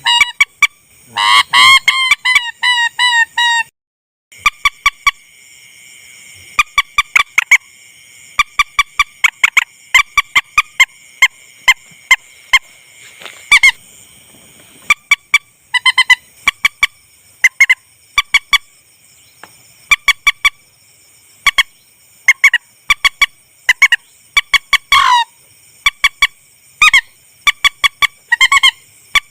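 Lure recording of rail (mandar) calls: short pitched calls repeated in quick clusters every second or two, with a dense run of calls in the first few seconds and a brief dropout just before the fourth second.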